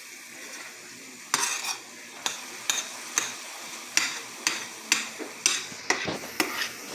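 Ground beef and onions sizzling in a frying pan, with a utensil scraping and knocking against the pan about twice a second from about a second in as the meat is stirred and broken up.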